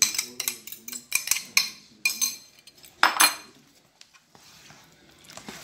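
A utensil clinking and scraping against a metal mixing bowl while beaten eggs are stirred into soaked bread. There is a quick run of clinks over the first couple of seconds, a louder clink about three seconds in, then quieter stirring.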